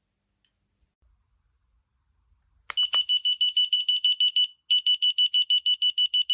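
Key finder receiver tag beeping: a rapid run of high, even beeps, about seven a second, starting just after a click under three seconds in, breaking off briefly and then resuming. It sounds only while the remote's button is held down.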